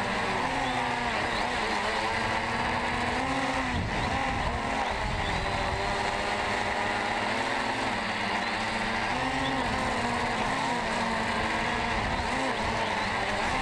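DJI Phantom 2 quadcopter's motors and 9-inch carbon-fibre propellers buzzing steadily in flight, heard up close from the camera carried on the drone. The pitch wavers up and down every second or so as the motor speeds change while it manoeuvres.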